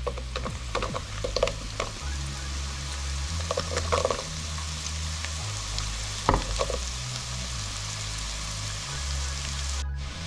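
Diced carrots dropping into a pan of onions frying in oil, with a steady sizzle and sharp clatters of the pieces landing, about a second in, around four seconds and around six seconds.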